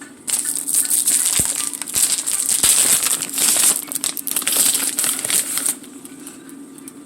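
Plastic bag of shredded cheese crinkling loudly as it is handled, for about five seconds before stopping abruptly.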